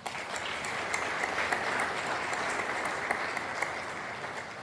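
Congregation applauding, starting all at once and tapering off near the end.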